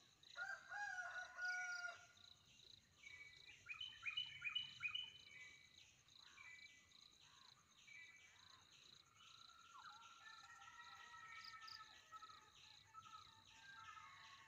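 Faint forest ambience: insects chirping in a steady pulsing rhythm, with several bird calls over it, the loudest about one and four seconds in.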